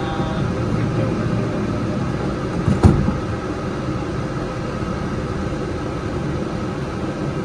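Steady hum inside the front of a Yurikamome rubber-tyred automated guideway train standing at a station, with one sharp thump about three seconds in.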